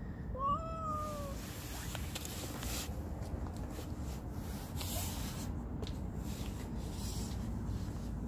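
A stray cat meows once, about half a second in: a single call of just under a second that rises and then drops slightly. A steady low rumble runs underneath.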